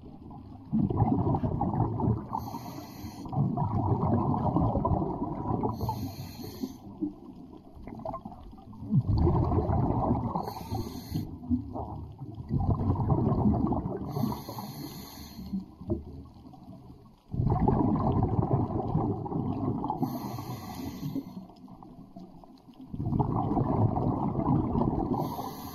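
Underwater breathing sounds of a scuba diver on a regulator: long spells of rumbling, gurgling bubble noise, with a short hiss from the regulator about every four to five seconds, in a steady breathing rhythm.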